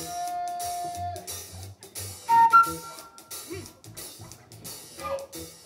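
Concert flute soloing over a live band's drum kit and electric bass in a funk groove. It opens on one long held note, plays short higher phrases in the middle, and slides downward near the end.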